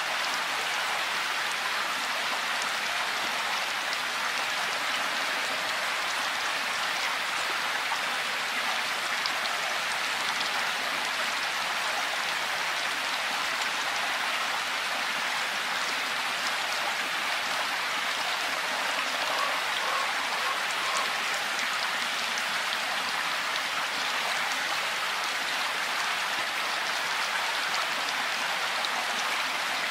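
Steady rain: an even hiss of many falling drops, with single drops ticking out of it here and there.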